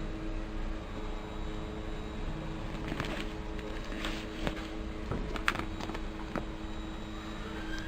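A steady low hum, with several short clicks and knocks in the middle. Near the end a higher tone starts, rising in pitch.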